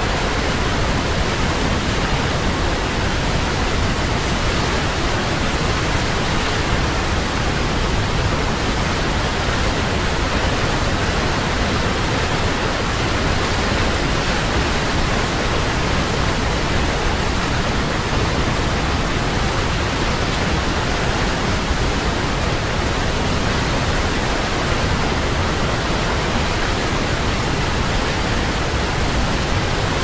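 Large waterfall's water crashing into its plunge pool: a loud, steady, unbroken rush of water.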